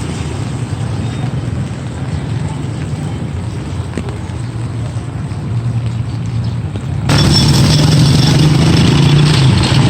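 A motor vehicle engine running steadily under a hiss of rain. About seven seconds in, the sound cuts suddenly to a louder, brighter mix of engine and rain.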